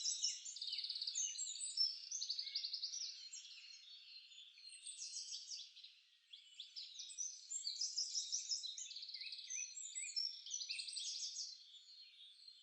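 A chorus of several songbirds chirping and trilling over one another, high-pitched, with a brief lull about six seconds in.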